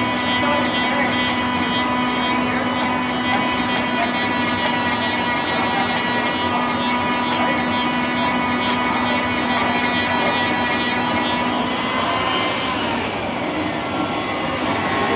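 An electric woodshop machine runs with a steady whine, then is switched off about twelve seconds in and falls in pitch as its motor spins down.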